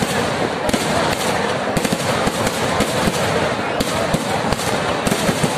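Fireworks barrage: a rapid, unbroken rattle of many firecracker explosions going off on top of one another.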